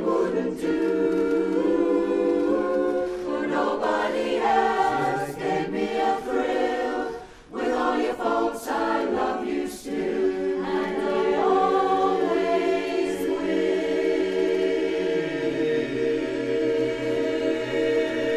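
Mixed barbershop chorus singing a cappella in four-part close harmony, with a brief break about seven seconds in. The second half is one long held chord, its lowest voice sliding down partway through.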